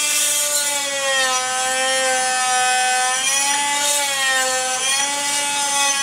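Electric oscillating multi-tool running steadily while scraping tough, hardened adhesive off a steel cross piece, a loud steady whine whose pitch sags a little twice.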